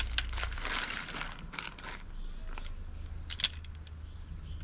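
Thin plastic bag crinkling for the first couple of seconds as plastic pipes are handled in it, then scattered light clicks of the plastic pipes, with one sharper click about three and a half seconds in.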